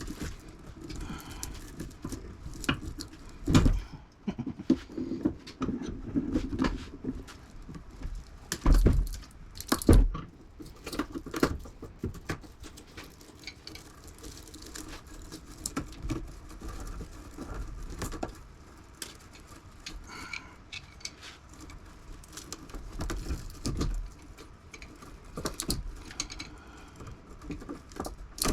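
Scrap metal from a window air conditioner being pulled apart by hand and tossed into a scrap bucket: irregular clinks, rattles and knocks, with a few louder knocks.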